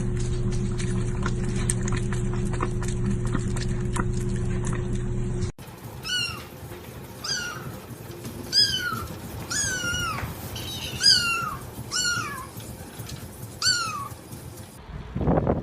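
A steady low hum with faint clicks that cuts off abruptly about five seconds in, followed by a cat meowing over and over: about eight short, high meows, each falling in pitch.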